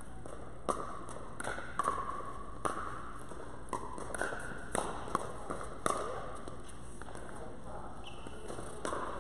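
Pickleball paddles hitting a hard plastic pickleball back and forth in a fast rally, a string of sharp pops that echo briefly in a large indoor court hall. The hits come quickly for about six seconds, then pause before one more pop near the end.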